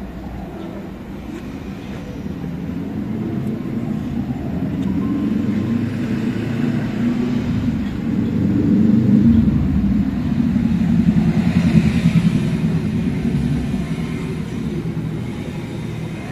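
Motor vehicle engine rumble, growing louder to a peak about two-thirds of the way through and then fading.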